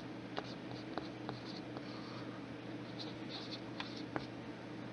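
Faint scratching of a pen on paper with scattered light clicks, over a steady low hum.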